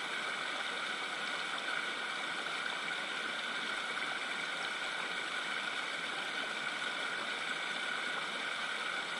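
Fast-flowing river water rushing steadily, a constant even hiss with no breaks.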